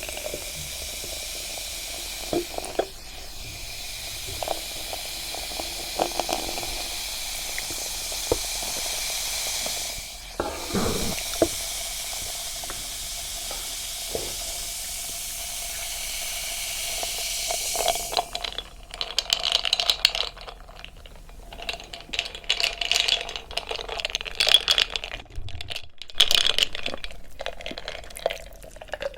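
Close-miked eating of crispy mocha bread. A steady hiss with soft mouth clicks gives way, about two-thirds of the way in, to repeated sharp crunching and crackling bites and chewing.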